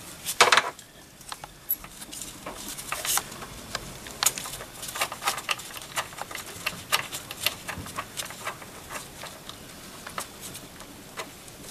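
Gloved fingers unscrewing a brass coolant temperature sensor from a Mercedes-Benz thermostat housing by hand. There is a sharp click-and-scrape about half a second in, then a run of small irregular clicks and rustles as the part is turned against the rags.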